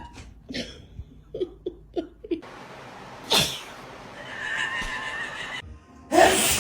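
A person laughing in short bursts, then a single loud sneeze about three seconds in.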